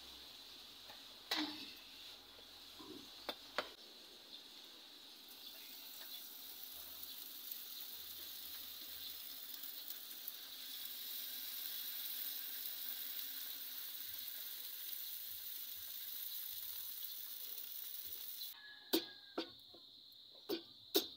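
Hot forged steel knife blade sizzling and hissing steadily in water as it is quenched, with steam rising; the hiss cuts off near the end, followed by four sharp hammer taps on the blade. A few knocks of handling come about a second in and again a couple of seconds later.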